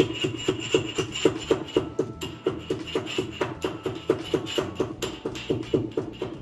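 Two green cardamom pods being pounded with a steel pestle in a small steel mortar: a quick, even run of ringing metallic strikes, about four a second.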